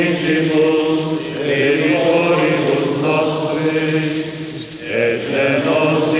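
Voices singing a slow liturgical chant in long held notes, with a brief break about four and a half seconds in.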